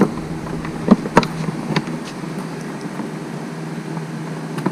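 Light plastic clicks and knocks from a tail light wiring harness and its connectors being handled and fed into the plastic housing, a few sharp ones near the start, about a second in and near the end. A steady low hum runs underneath.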